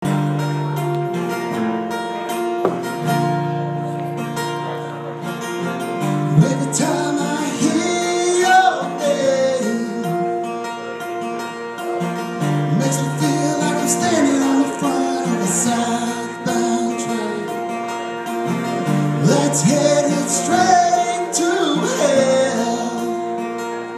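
Live band music: guitar over a steady low bass line, with a voice singing phrases on and off.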